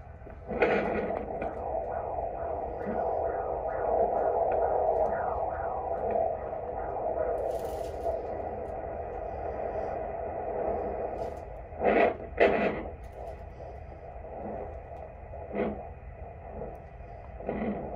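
Handheld fetal Doppler hissing through its small speaker as the probe searches the belly for the baby's heartbeat. For a few seconds early on it picks up a fast rhythmic pulse, about two to three beats a second. Loud crackling knocks come around twelve seconds in as the probe is shifted over the gel.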